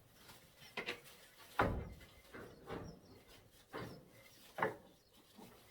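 A crock and a small wire hook being knocked and scraped while someone tries to hang them: about five separate knocks, the loudest about a second and a half in.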